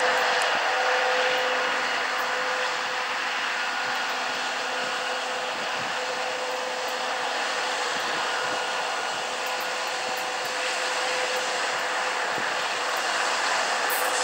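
2TE116U two-section diesel locomotive with its 16-cylinder diesel engines running under load as it approaches with a freight train: a steady rush with a few steady whining tones, growing a little louder near the end.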